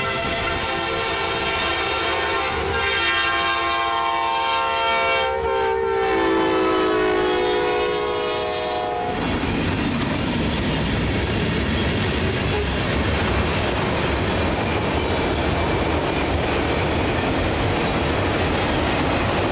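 Norfolk Southern freight locomotive sounding its air horn chord in two blasts, a long one and then a shorter one, the pitch dropping as the locomotive passes. After the horn stops about nine seconds in, the steady rumble and clickety-clack of the autorack freight cars rolling past takes over.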